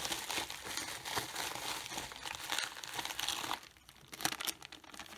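Packaging crinkling and rustling as it is handled and opened, dense for about the first three and a half seconds, then a few scattered crackles.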